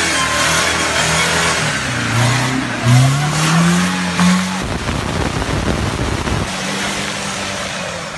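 Off-road Jeep's engine revving hard under load while its mud tyres spin for grip, the pitch climbing through several revs. About halfway through it turns into a rough, noisy rush for a couple of seconds, then settles into a steady engine drone.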